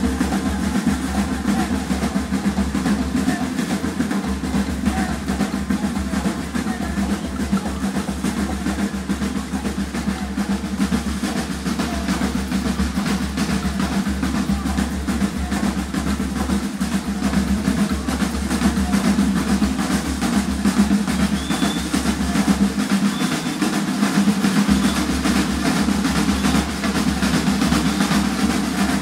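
A street drumming group playing together in a continuous driving rhythm, with large deep bass drums under snare drums. The deepest drums drop out for a moment about three-quarters of the way through, then come back in.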